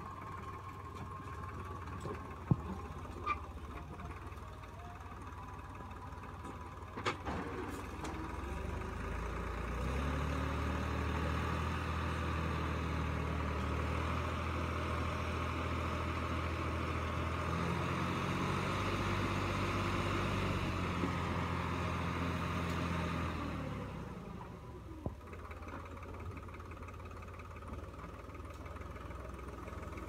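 Tractor diesel engine running, with a few sharp knocks in the first seconds. About ten seconds in it is revved up and held at higher speed for some thirteen seconds while the trolley's hydraulic tipper raises the load of soil, then it drops back to idle.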